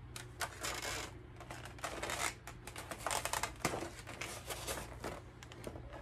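Handling noise as a box is picked up and brought out: an irregular run of scrapes, rustles and clicks, busiest a little past the middle and dying away near the end.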